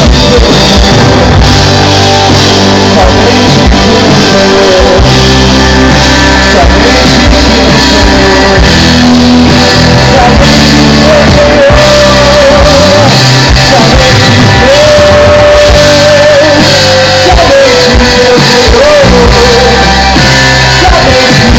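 Live band playing a worship song, loud and continuous, with a singer holding long, wavering notes over a dense accompaniment.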